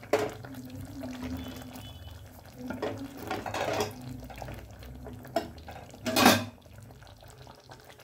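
A spatula stirring thick curry gravy in a pan, scraping and knocking against it in short bouts. The loudest knock comes about six seconds in.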